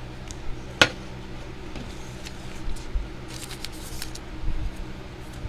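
Handling of trading cards and their packaging: a sharp click, then a second one just under a second in, and a short run of crinkling and snipping sounds around the middle.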